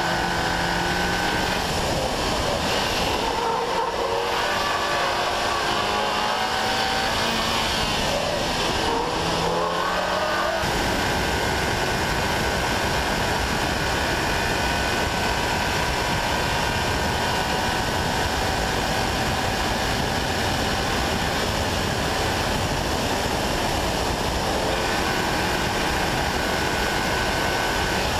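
Seat Leon Cupra 280's turbocharged 2.0-litre four-cylinder engine pulling hard on a hot lap, its pitch rising and falling through gear changes for the first ten seconds or so. From about ten seconds in it gives way mostly to a steady rush of wind and road noise at high speed.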